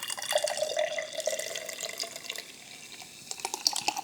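Carbonated soda poured into a glass, the stream running for about two seconds, then fizzing with a crackle of popping bubbles.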